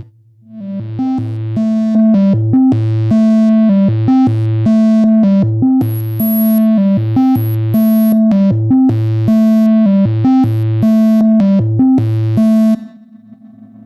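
Modular synthesizer sequence run through a Xaoc Devices Zagrzeb four-pole filter: a repeating pattern of short bass and melody notes with bright, buzzy overtones. About a second before the end the pattern stops and a quieter held tone remains.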